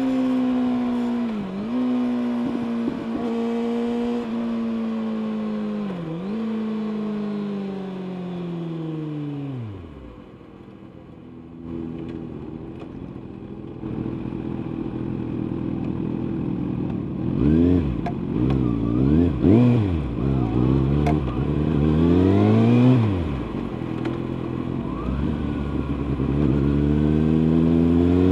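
Kawasaki ZX-6R inline-four sport bike engine through an Akrapovic exhaust, running at high revs and easing off briefly twice. It then winds down to near idle at about ten seconds in. After that come several quick rises and falls in revs, and the engine climbs again in pitch near the end as the bike accelerates.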